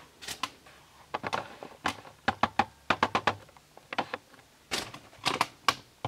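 Irregular clicks and taps of handling noise, a dozen or more short sharp ticks with uneven gaps, some in quick clusters.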